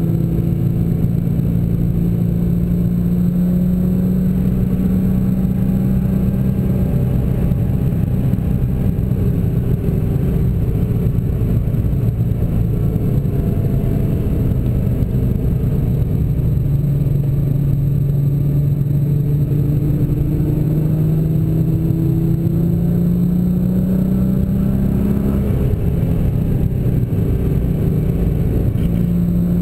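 A 2011 Nissan GT-R's twin-turbo V6 heard from inside the cabin, cruising at moderate speed, with tyre and road noise. Its note drops after about seven seconds, climbs slowly through the second half, and dips briefly near the end.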